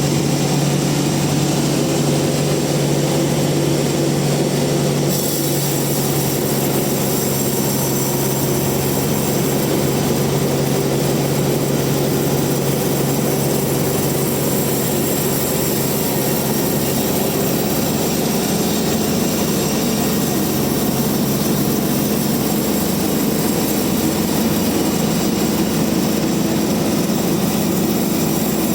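Band sawmill running steadily as it saws a large rain tree log, with a constant hum and a hiss; a brighter high hiss joins about five seconds in.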